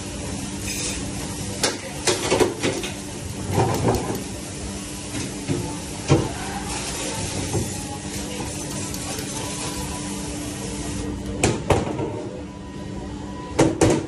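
Overhead pre-rinse spray valve hissing steadily as water hits stainless steel pans in a dish-room sink, over a low steady hum. Metal pans and plastic dish racks clatter as they are handled, a few times, loudest near the middle and near the end.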